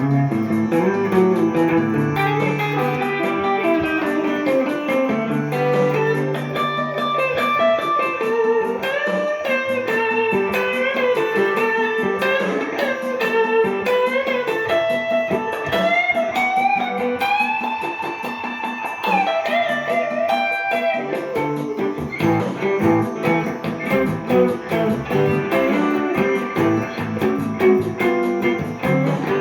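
Gibson ES-339 Custom semi-hollow electric guitar improvising a jazzy melody with an Indian flavour, with held low notes under the line early on. About halfway through there is a long slow upward bend.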